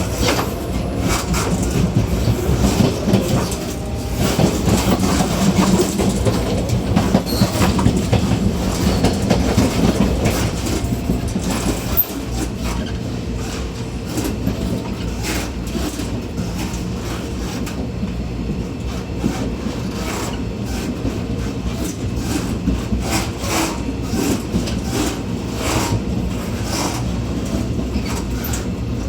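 Taiwan Railway local train running, heard at the gangway between two carriages: a steady low rumble with frequent sharp clicks and clatter, louder for about the first twelve seconds and then easing off.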